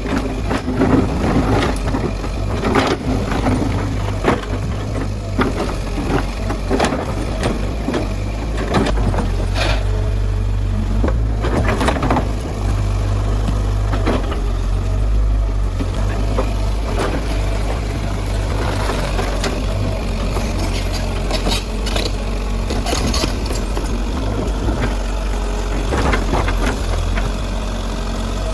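Diesel engine of a Kobelco SK100-1 excavator running steadily under a string of sharp knocks and cracks from demolition work, most of them in the first half and a cluster more near the end.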